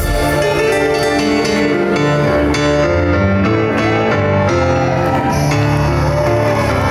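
Live music from a contemporary Native American new-age/worldbeat band: sustained keyboard chords over a bass line, with acoustic guitar and drums.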